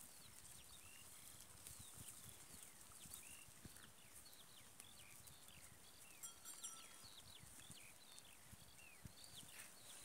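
Faint outdoor ambience of many short, high chirping calls, several a second, with soft low bumps underneath.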